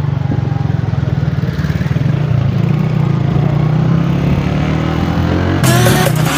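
Motorcycle engine running as the bike rides along the road, with a steady pulsing note. Music comes in near the end.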